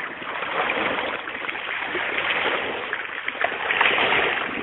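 Small waves lapping and splashing against a muddy lakeshore, a steady wash of water.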